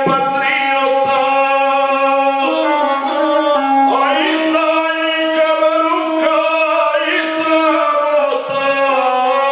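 A man singing a Serbian epic song in a chanting voice, accompanying himself on the gusle, a single-string bowed instrument played along with the voice. Voice and bowed string hold steady pitches that step up and down.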